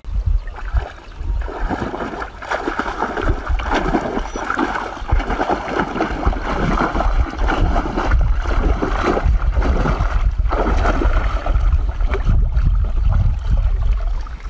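Shallow muddy water splashing and sloshing continuously as it is churned by a person wading and working a tool through a narrow ditch, driving fish toward a woven bamboo basket trap.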